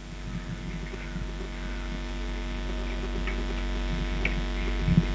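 Steady low electrical mains hum that grows slowly louder, with a few faint clicks and knocks in the second half.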